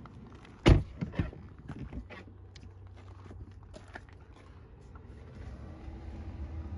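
A loud thump about a second in, then lighter knocks and rustling as someone climbs into the rear seat of a Tesla Model Y. A low steady hum grows near the end.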